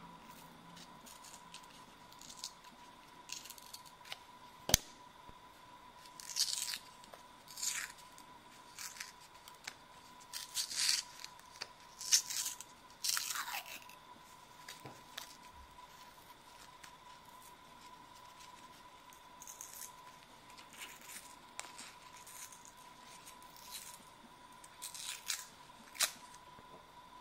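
Paper wrappers being torn and peeled off soft pastel sticks: a series of short scratchy tearing and crinkling sounds, with one sharp click a little way in. A faint steady high tone runs underneath.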